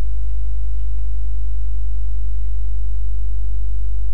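Steady electrical mains hum with a stack of evenly spaced overtones, a constant low drone from the recording setup.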